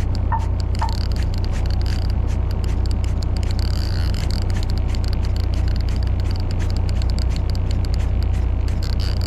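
Fishing boat's engine humming steadily while a baitcasting reel is cranked during a tai rubber retrieve, giving irregular ticking, with two short squeaks about half a second in.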